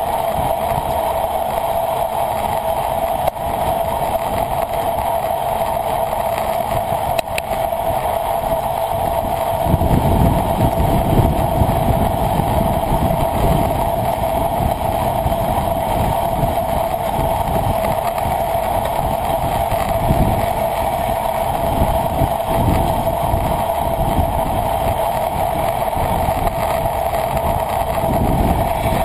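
Rushing wind and road noise on the microphone of a camera riding on a moving bicycle, with a steady hum running under it. About ten seconds in, a low, gusting wind buffeting comes in and continues, rising and falling.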